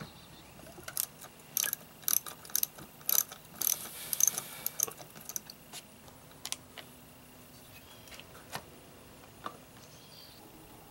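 Hand socket ratchet clicking as a nut on an outboard lower unit is turned through a socket on a long extension. The sharp clicks come in quick runs, thick and loud in the first half and sparser after about six seconds.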